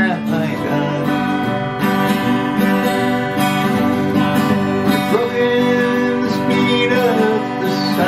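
Twelve-string acoustic guitar strummed steadily through a chord progression.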